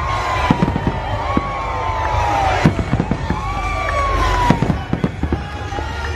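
Aerial fireworks going off in quick succession: sharp bangs and crackling over a steady low rumble, with several high sweeping whistles that rise and fall.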